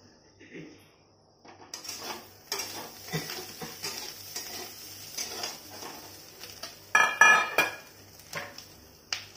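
Metal spatula scraping and knocking against a steel kadai as fried mushrooms are stirred, with a light sizzle underneath. The scraping starts after about a second and a half, and a louder ringing clatter of steel comes about seven seconds in.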